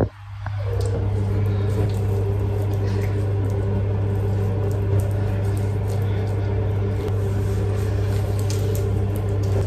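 Steady low electrical hum, with faint soft rubbing and squishing as a gritty face scrub is worked over the skin by hand.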